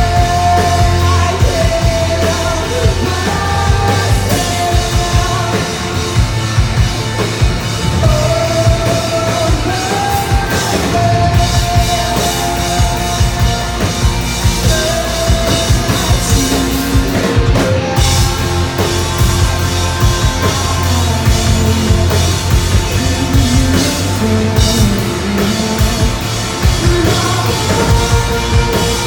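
Live rock band playing loudly, with a driving drum kit and distorted electric guitars.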